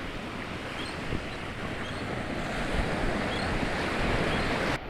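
Gulf surf washing onto the beach, with wind buffeting the microphone, swelling louder near the end before it cuts off suddenly.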